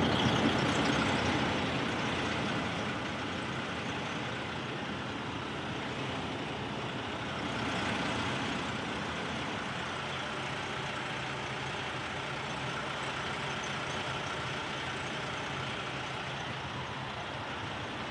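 Diesel truck engine idling steadily, a constant rumble with a hiss over it.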